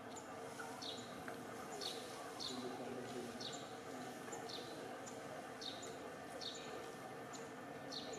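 A bird calling over and over, each call a short high note followed by a falling whistle, repeated about once a second over steady outdoor background noise.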